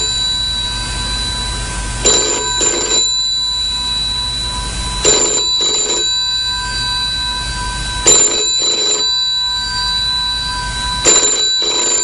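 Telephone ringing in the British double-ring pattern: four pairs of rings, one pair every three seconds, over a faint steady high tone.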